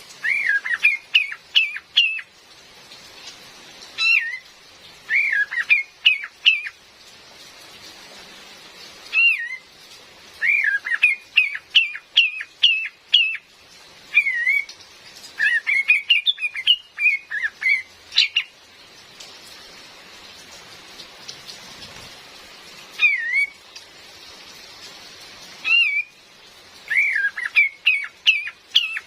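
Female kapas tembak calling in short phrases of quick, rising-and-falling notes, a phrase every few seconds with pauses between. Rain hisses steadily underneath.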